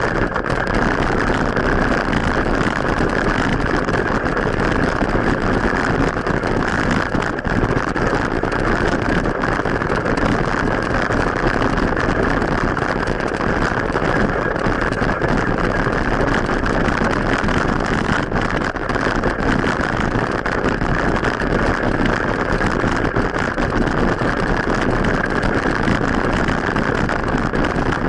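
Steady rushing wind and road noise on an action camera's microphone while cycling.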